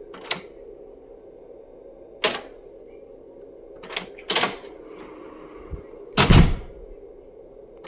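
A few sharp clicks from the door's steel lever handle and latch, then a louder thunk about six seconds in as the latch releases and the door is pulled open.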